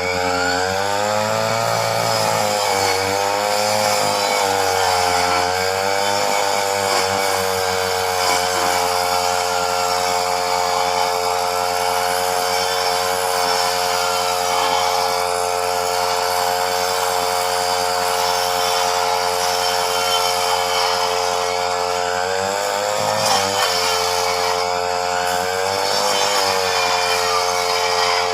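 Chainsaw running at high speed and cutting tree branches: its steady engine note sags and recovers several times in the first few seconds, holds level for a long stretch, then dips again a few times near the end as the chain takes the load of the wood.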